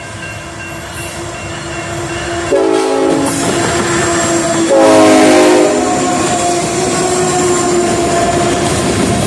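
Locomotive's Nathan Airchime K5HLA five-chime horn sounding two blasts, a short one about two and a half seconds in and a longer, louder one about five seconds in, as the train approaches and passes with a steady rumble of wheels on rail.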